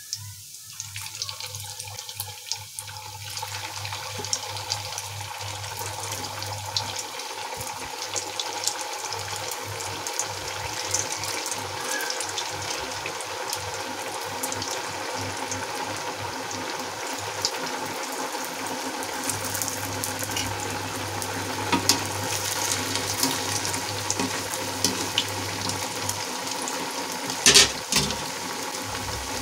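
Sabudana tikkis deep-frying in hot oil in an iron kadai: a steady sizzle and bubbling with small crackles, building up over the first few seconds after they go in. A sharp knock sounds near the end.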